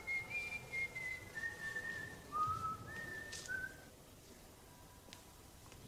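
A man whistling a short tune through pursed lips: a run of held notes, mostly stepping down in pitch, that stops about four seconds in.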